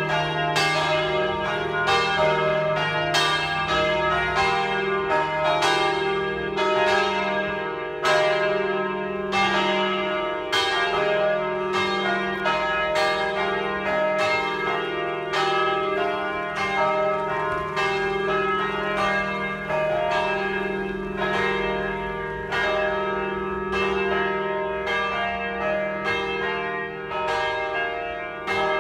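Three large church bells, tuned E-flat, F and G and cast by the Jules Robert foundry of Nancy, ringing together in a full peal. Their strokes overlap unevenly, about two a second, over a steady ringing hum.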